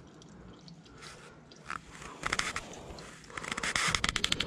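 Shop rag rubbing and scraping against the car's underside, with quiet rustling at first, then bursts of quick, rough clicking and scraping about two seconds in and again near the end.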